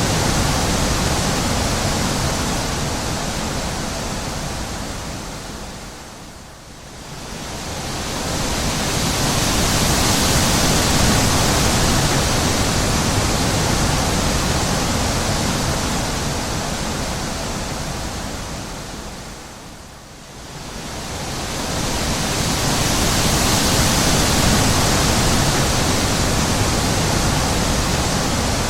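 Wind blowing as a steady rushing noise that rises and falls in slow gusts, dying down twice, about six seconds and twenty seconds in, before swelling back up.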